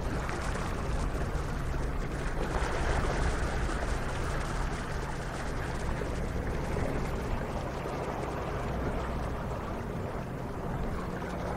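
Steady rushing water with a low, even motor hum underneath.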